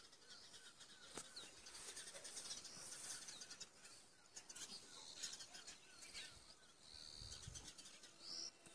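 Faint birds chirping: a steady series of short repeated chirps, with a few higher whistled calls.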